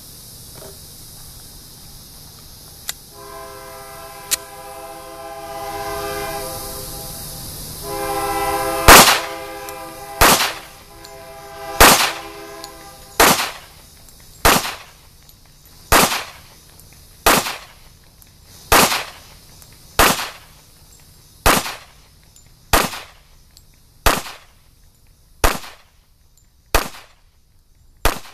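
Springfield XD .45 ACP semi-automatic pistol fired about fifteen times at a steady pace, roughly one shot every second and a half. Before the shooting there are two sharp clicks, and a distant horn sounds in two long blasts, the second running into the first shots.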